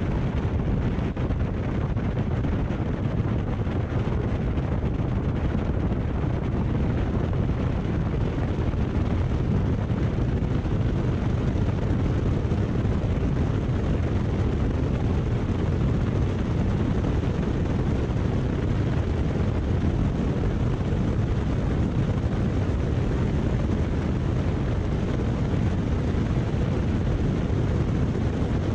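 Single-engine light airplane's piston engine and propeller running at takeoff power through the takeoff roll and climb-out, heard from a microphone mounted outside under the wing, with wind rushing over it. The sound is a loud, steady, unbroken rumble.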